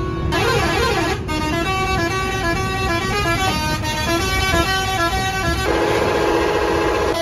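Bus horn sounding a run of quick stepped notes up and down, ending in a long held note near the end, over the rumble of the engine and road.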